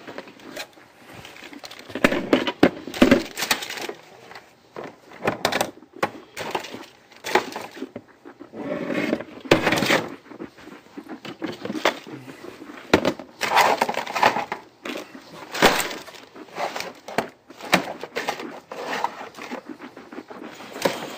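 Irregular clattering and clinking of hard objects being handled and set down, with knocks and scrapes at uneven intervals.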